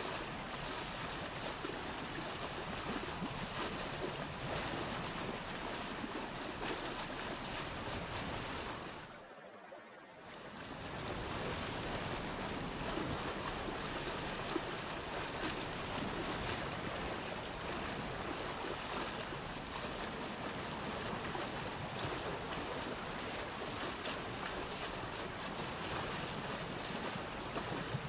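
Steady rush of water running through stone-lined channels and pouring from pipe spouts. It dips briefly about ten seconds in and comes back.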